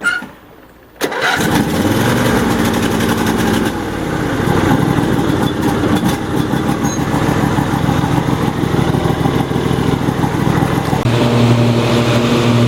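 Riding mower's 26 hp Briggs & Stratton engine running steadily under load while mowing, cutting in abruptly about a second in; its low hum gets stronger near the end.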